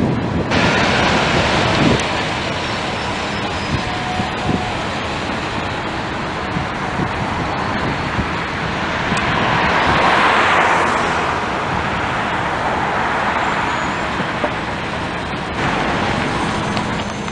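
Transit buses and street traffic running, with a bus passing that swells and fades about ten seconds in.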